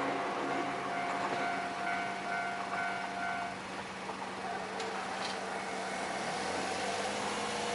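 Ohmi Railway train running over a level crossing: a steady rumble and rush of wheels on rail, with the crossing's warning bell tones sounding faintly under it until about halfway through.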